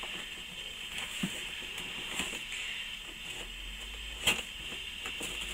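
Cardboard box being handled and opened, with light rustles and scattered taps and one sharper knock about four seconds in, over a steady background hiss.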